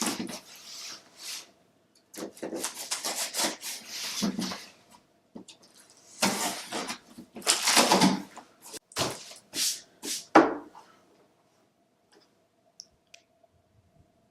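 A sealed product box being cut and unwrapped by hand: four spells of plastic-wrap crinkling and cardboard scraping, dying away about ten seconds in.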